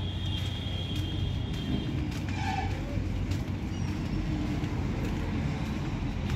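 Heavy diesel truck engine running at idle: a steady low rumble with an even hum.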